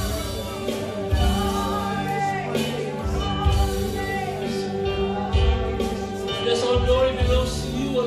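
A live church worship band plays, with electric guitars, bass and keyboard, and singing over the music.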